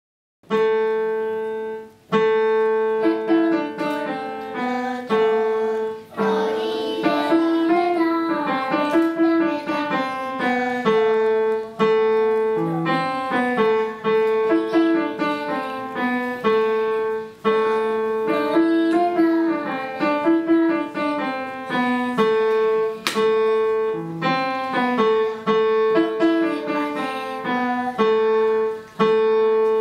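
Digital piano being played: a simple melody over a steadily repeated note in the middle range and a lower bass note, in short phrases about two seconds long, starting about half a second in.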